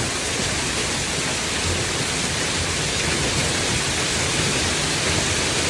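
Hailstorm: hail and rain beating down in a steady, dense hiss that does not let up.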